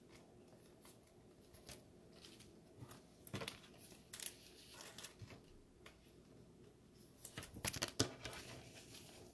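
Faint rustling and light clicks of 2020 Mosaic football trading cards being handled and slid against one another as they are flipped through, with a few sharper snaps about three seconds in and again around eight seconds in.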